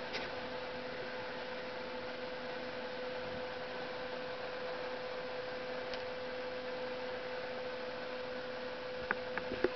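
Steady electrical hum over a constant hiss, with a few short clicks near the end.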